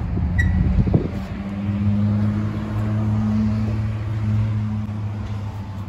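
A steady low engine hum that swells a little in the middle, with a single knock about a second in.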